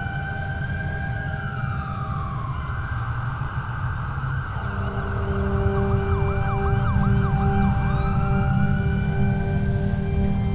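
Emergency-vehicle siren in a slow wail, rising and falling, switching to a fast yelp of about three sweeps a second around the middle, then back to a rising wail; under it a steady low drone with held tones.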